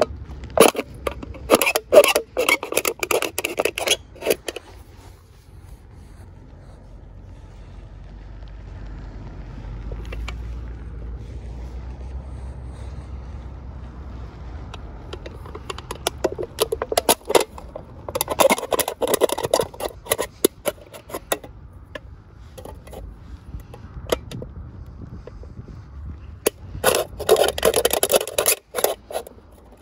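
Pocket-knife blade scraping and sawing through the thin aluminium wall of a 710 ml beer can in quick strokes, in three bouts: near the start, around the middle and near the end. Between the bouts there is a low steady rumble.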